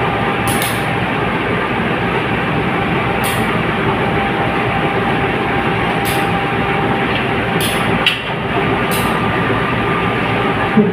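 Diesel-electric locomotive engine running steadily at close range, with a few short high hisses about every second or three.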